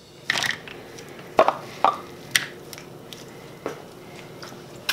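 About half a dozen light clicks and taps, a second or so apart, with a short rustle near the start, as chopped parsley and garlic is put onto raw mussels in a stainless steel pot: a utensil tapping and shells clicking.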